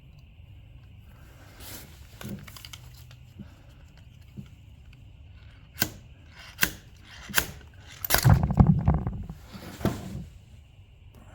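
Impact hammer on an injector-puller adapter, pulling a fuel injector: three sharp metallic strikes less than a second apart, then a louder clattering burst lasting about a second, and one more knock.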